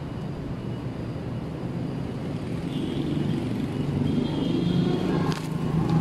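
City street traffic: a steady low rumble of vehicle engines that grows louder over a few seconds, with a short click about five seconds in.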